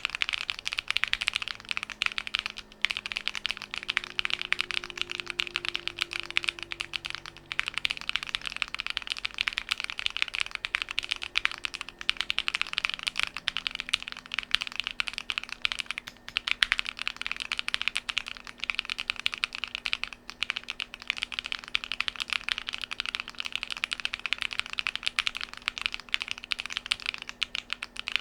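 Fast, continuous typing on a DIY Alice-layout mechanical keyboard: a dense stream of key clicks with a few brief pauses.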